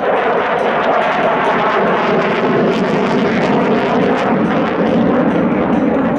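A MiG-35 fighter jet's twin engines flying a display manoeuvre: loud, steady jet noise with a ragged crackle running through it.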